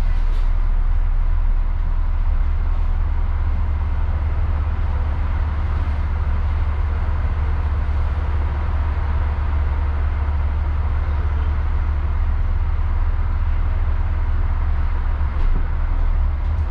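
Bus in motion: a steady low engine drone under a constant wash of road noise.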